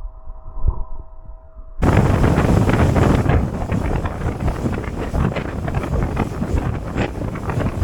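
A muffled, steady hum with a few held tones, then an abrupt cut about two seconds in to loud wind buffeting the microphone on a boat running at speed, with the rush of water and engine under it.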